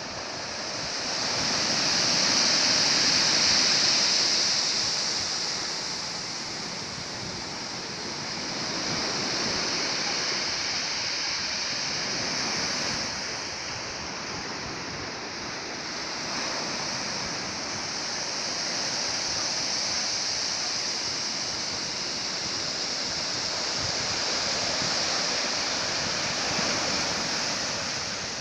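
Ocean surf: waves washing in as a continuous rush that swells and eases in slow surges every several seconds, loudest a few seconds in.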